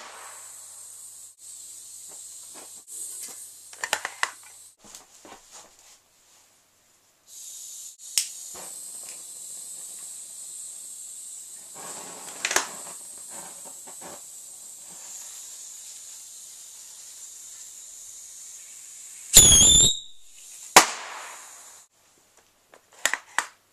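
Hand-launched fireworks: scattered small pops and crackles over a steady high hiss, then near the end a whistling firework shrieks off with a rising whistle, followed about a second later by a sharp bang.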